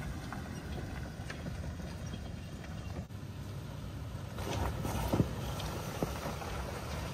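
Toyota 4Runner driving slowly over a rough dirt and stone forest track: a low, steady rumble of engine and tyres, with a few short crunches about five seconds in as the tyres go over rocks.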